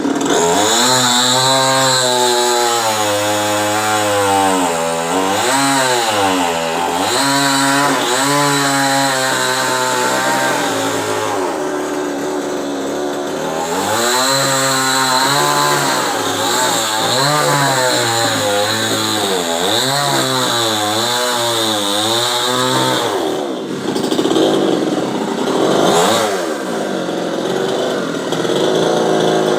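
Two-stroke chainsaw running loud, its engine pitch rising and dropping again and again as it revs and bogs down under load while cutting coconut-tree wood.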